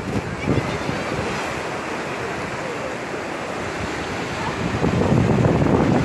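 Sea surf washing over black volcanic rocks, a steady rush with wind buffeting the microphone; the surf grows louder about five seconds in.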